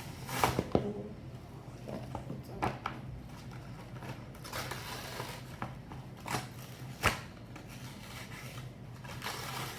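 A toy packet being opened and handled by hand: irregular rustling and tearing with scattered clicks, and one sharp click about seven seconds in.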